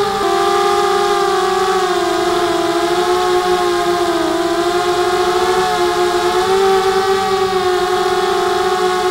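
Small drone's electric motors and propellers whining steadily, the pitch wavering slightly with throttle and dipping briefly about four seconds in.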